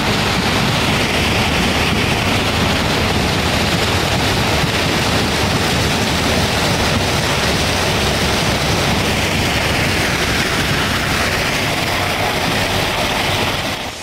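New Holland CX8080 combine harvester running: a steady, loud machine rush with a low engine hum underneath.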